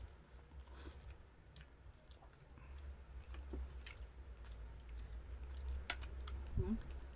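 Close-miked chewing of grilled chicken and rice, with small scattered clicks of eating and a sharper click about six seconds in, over a steady low hum.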